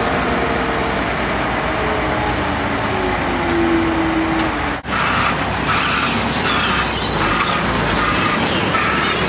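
Skid-steer loader's diesel engine running and revving under load as it lifts a bucket of debris, its pitch slowly gliding up and down. About halfway in it breaks off for a moment and gives way to steady machinery noise with a regular pulsing.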